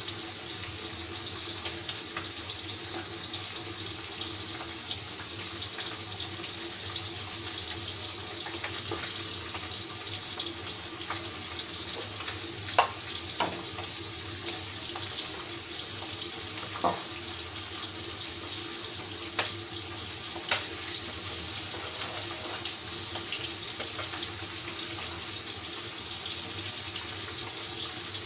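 Small baim fish (spiny eel) sizzling steadily as they fry in hot oil, with a faint low hum beneath. A handful of sharp utensil clicks and knocks come in the middle, the loudest about halfway through.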